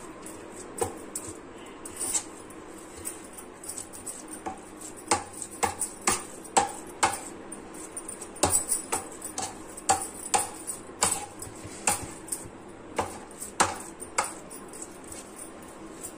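Steel spoon stirring and pressing a thick cooked ragi-and-rice mixture in a rice cooker pot, with irregular clicks and knocks of the spoon against the pot, thickest in the middle stretch.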